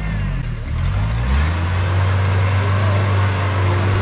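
Engine of a modified four-wheel-drive truck working under load on an off-road climb. The revs rise about a second and a half in and then hold steady.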